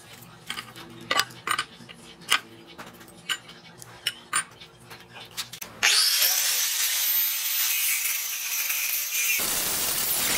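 Scattered light clicks and taps for about six seconds. Then an electric angle grinder starts with a rising whine and runs at speed, and about three seconds later its disc bites into the steel of an LPG cylinder with a harsh grinding as it cuts.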